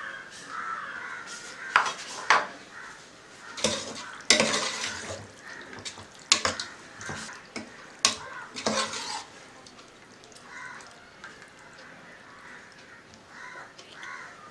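Metal ladle stirring a watery beef curry in a metal pressure cooker pot, clinking and scraping against the pot's sides several times, with wet stirring sounds from the liquid. The clinks stop after about nine seconds and only faint stirring sounds follow.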